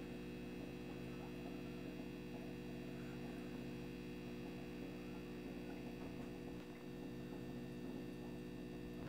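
A steady hum made of several held tones, unchanging, with faint small ticks over it.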